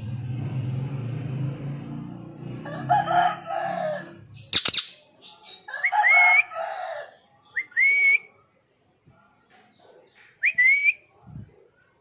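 Pet parrot calling: two harsh, speech-like calls a few seconds apart with a sharp click between them, then short rising whistles in the second half.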